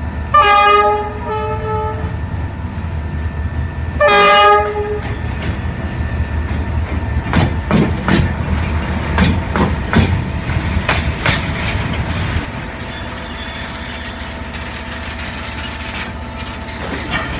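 Model train running: a horn sounds twice, a long blast then a short one, followed by wheels clicking and rumbling over the track. Near the end the rumble drops and a thin high whine is left.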